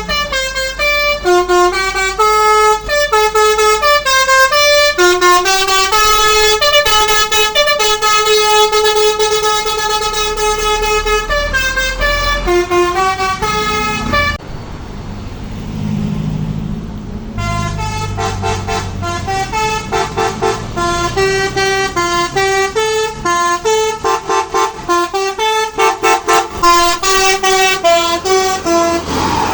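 Tour bus telolet musical horn playing a quick melody of stepped notes. It breaks off for about three seconds near the middle, leaving a low rumble, then plays its tune again.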